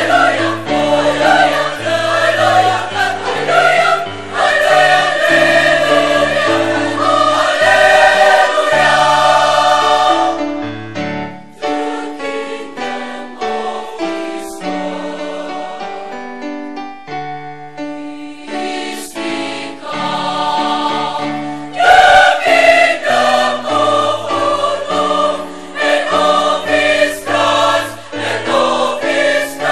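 Large mixed choir singing in chords; loud at first, it drops to a softer passage about a third of the way through and swells loud again about two-thirds of the way in.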